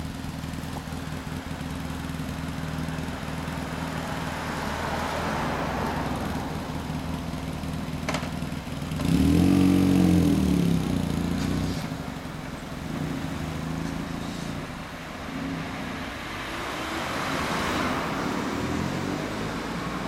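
BMW R1100S boxer twin with a Sten Tune aftermarket muffler running at low speed in traffic, then swelling loud as the bike rides close past about nine seconds in, its pitch rising and falling. Cars pass near the end.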